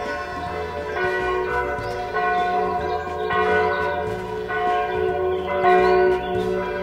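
Bells ringing, a new stroke about once a second, each tone ringing on into the next over a low note that changes with each stroke; the loudest stroke comes near the end.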